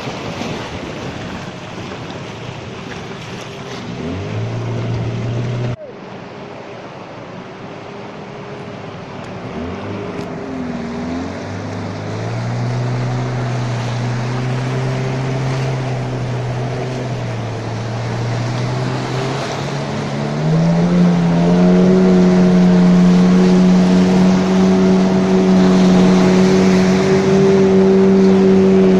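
A longboat's outboard motor running through river rapids, over a rush of churning water and wind on the microphone. The engine note climbs in steps, and about two-thirds of the way through it rises sharply and gets louder.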